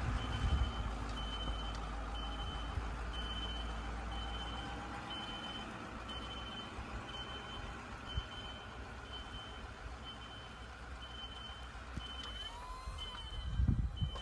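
Snowplow pickup truck backing up: its reversing alarm beeps steadily, a little under two beeps a second, over the low rumble of its engine, which fades as the truck moves away. A couple of low thumps come near the end.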